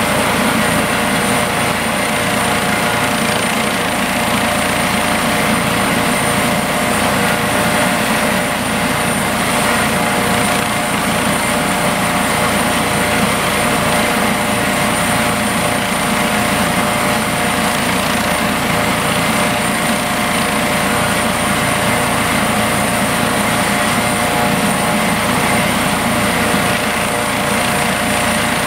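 Eurocopter EC155 helicopter running on the ground with its rotors turning: a steady turbine whine with several constant high tones over the rotor and engine noise, unchanging throughout.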